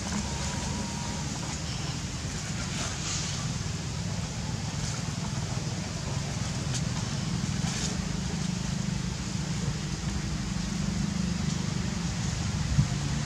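A steady low rumble like an engine running, with a few faint crinkles of a paper sheet being handled by a baby macaque, about 3 and 8 seconds in.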